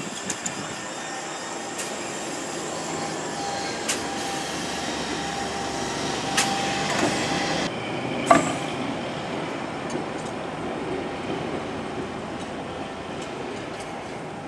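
A London Underground 1962 Tube Stock train, working as a Rail Adhesion Train, runs through a station without stopping. Steady wheel-on-rail running noise with a steady tone in it builds as the cars pass and then fades as the train draws away. Sharp clacks come every second or two, the loudest about eight seconds in.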